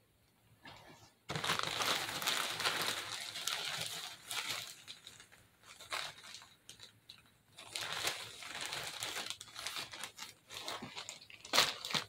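A clear plastic bag crinkling as hands rummage through it. It starts suddenly about a second in and goes on in spells, with a sharp knock near the end.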